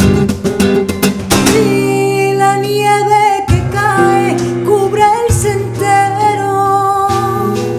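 Asturian montañesa played on a nylon-string flamenco guitar with percussion: guitar strumming at the start, then a woman sings long, wavering held notes from about a second and a half in. A few low drum hits sound under the voice.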